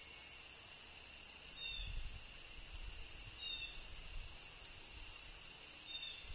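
Outdoor ambience with a steady high insect drone and three short, high bird chirps spaced about two seconds apart. Low, dull thumps come and go through the middle.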